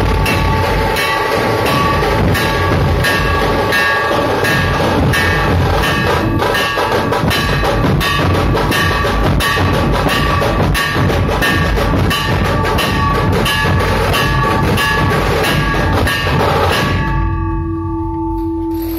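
A large dhol troupe drumming: many barrel dhols beaten together in a dense, driving, loud rhythm, with steady ringing tones over it. The drumming breaks off about two seconds before the end, leaving a ringing tone.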